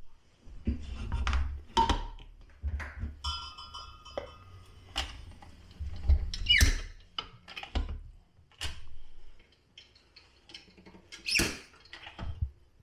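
Floor-standing wine corker driving corks into glass wine bottles: squeaks as the corks are pressed into the necks, among knocks and clunks of the lever and of bottles being set in place and taken out. One held squeak comes a few seconds in, and a short rising squeak about halfway.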